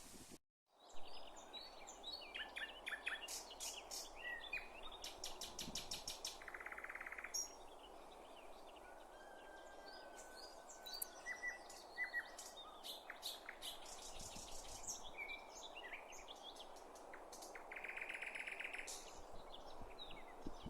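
Forest birdsong: several birds singing at once, among them a nightingale's song of rapid clicking rattles, buzzy trills and whistles, over a steady rush of background noise. A brief dropout cuts the sound about half a second in.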